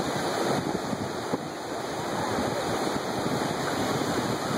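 Ocean surf breaking and washing in over the shallows: a steady rushing noise.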